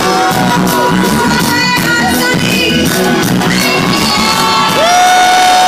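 Live band music with a woman singing into a microphone and the crowd shouting and whooping. Near the end she holds one long steady note.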